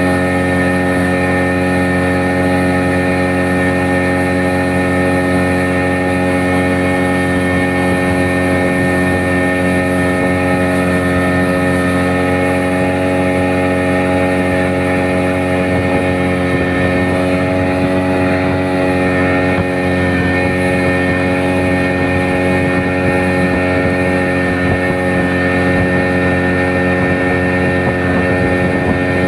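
Motorboat engine running at a steady speed, holding one pitch throughout.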